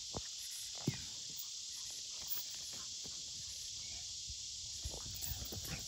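A steady, high insect hiss, with a few soft thuds from feet and a dog's paws on grass, once near the start and several times near the end.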